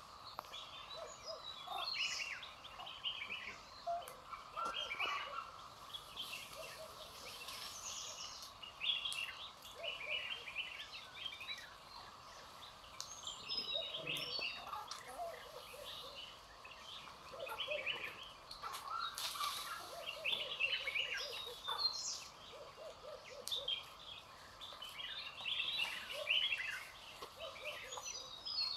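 A chorus of forest birds chirping and calling, many short calls overlapping throughout, over a faint steady background band.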